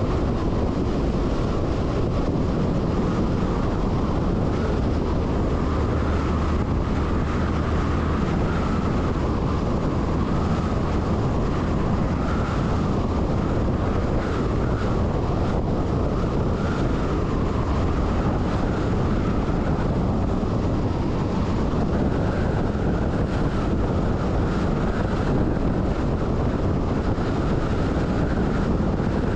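MAN LE 280 B 4x4 truck driving at a steady pace, its engine and road noise a constant low rumble, with wind buffeting the microphone.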